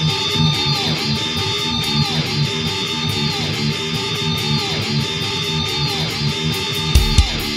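Heavy metal band music: guitars play a repeating riff with no singing. About seven seconds in, the drums come in with hard, low kick hits.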